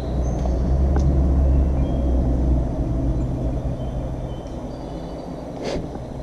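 Engine hum of a motor vehicle going by, a low steady drone that swells over the first couple of seconds and then slowly fades away.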